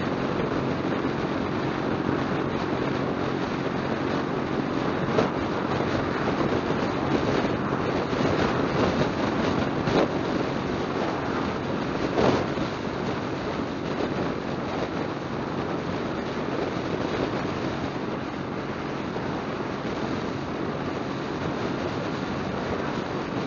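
Motorcycle engine running steadily at highway cruising speed under continuous road and wind noise, with brief swells as oncoming vehicles pass, one of them a pickup truck about twelve seconds in.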